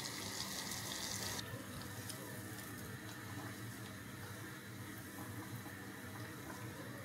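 Melted butter with red pepper flakes sizzling in a small pot, stopping suddenly about a second and a half in; after that only a faint steady hiss.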